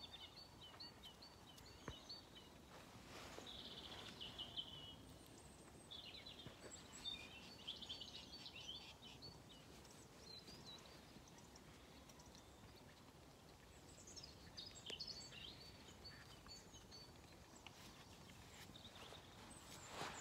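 Faint birdsong: short chirping phrases that come and go. A few light rustles and ticks sound over a quiet outdoor background.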